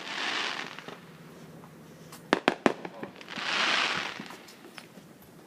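Fireworks going off: a short hissing swell at the start, then three sharp bangs in quick succession about two seconds in, followed by a louder hiss lasting about a second.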